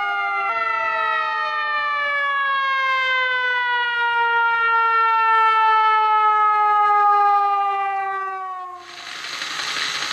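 Emergency siren wailing in one long tone that slowly falls in pitch for about eight seconds, then stops abruptly. A dense electric whirring, the motor and gears of a small toy radio-controlled car, takes over near the end.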